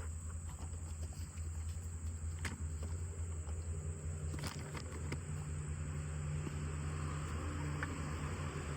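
Outdoor ambience: a steady high insect drone over a low, steady hum, with a couple of sharp clicks or knocks about two and a half and four and a half seconds in.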